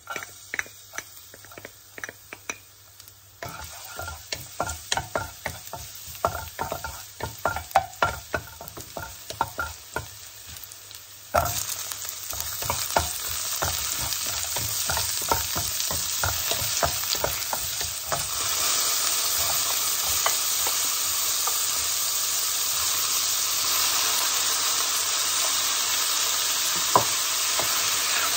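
Stir-frying in oil in a ceramic-coated wok. At first there are scattered clicks and scrapes over a faint sizzle; about eleven seconds in it jumps suddenly to loud, steady sizzling, stirred with a wooden spatula, and grows louder again a little later.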